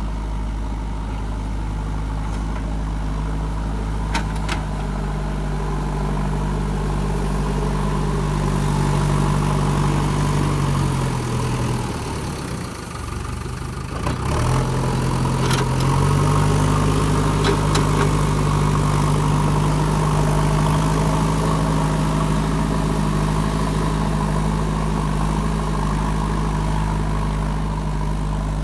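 Backhoe loader's diesel engine running steadily. About ten seconds in, its pitch sags and it drops away for a couple of seconds, then picks back up and holds. A few sharp clicks or knocks are heard over it.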